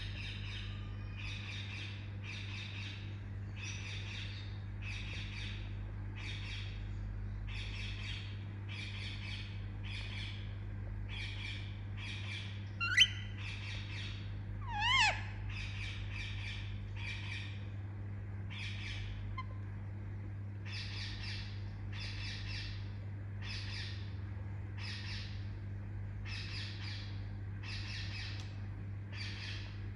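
Baby Indian ringneck parakeet giving a steady series of short, hoarse chirps, about one a second. Two louder, sharper calls break in about halfway through, one sweeping up and the next wavering up and down. A steady low hum runs underneath.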